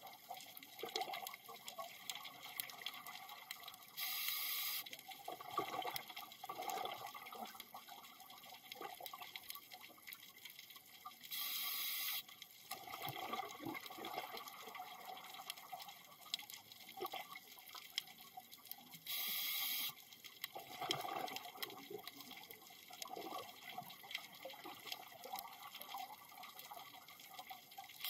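Scuba diver breathing through a regulator underwater: a burst of exhaust bubbles of about a second three times, roughly every seven and a half seconds, with a steady crackle of clicks between.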